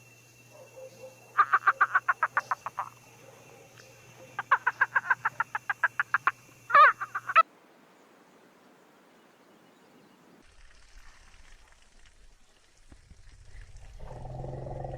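An animal calling in two runs of rapid, evenly spaced pulses, each run lasting about a second and a half, followed by one short louder call; after a sudden cut, a low steady droning sound rises near the end.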